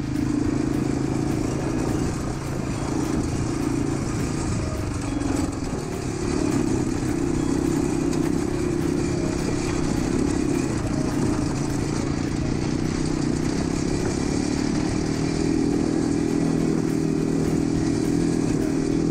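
Quad bike (ATV) engine running steadily as it rides along a rough dirt and gravel track. The engine note eases off briefly about five seconds in, then picks up again and holds higher near the end.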